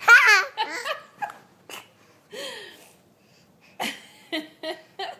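A baby squealing and babbling: a loud, high squeal with wavering pitch at the start, then a run of short vocal sounds, and a few quick short high sounds near the end.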